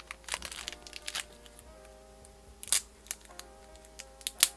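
Background music with held notes, over the crinkling and tearing of foam packing being pulled off a boxed collectible figure, with a few sharp crackles, the loudest two near the middle and near the end.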